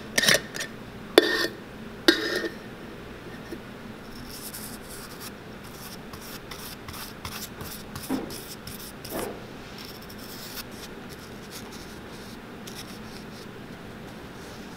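Metal screw cap of a rubber cement can being worked off with a few sharp clicks and knocks, then the cap's applicator brush spreading cement onto a fabric shoe liner and leather insole, a soft steady scratchy rubbing.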